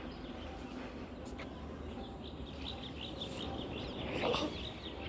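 Small birds chirping: a quick run of short, high calls through the second half, over steady outdoor background noise.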